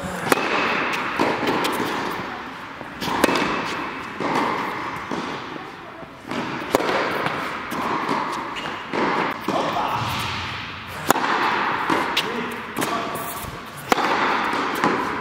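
Tennis ball struck by rackets and bouncing in a baseline rally, sharp pops about every one to two seconds, echoing in an indoor tennis hall.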